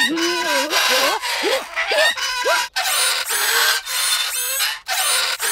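Cartoon cello bowed badly: scratchy, squeaky notes that slide up and down in pitch, ending in a few quick upward swoops. About halfway through it gives way to a run of short, shrill squeals, each about half a second long.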